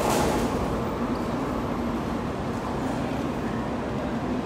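JR West 500 series Shinkansen train pulling away, its running noise slowly fading as it moves off down the track.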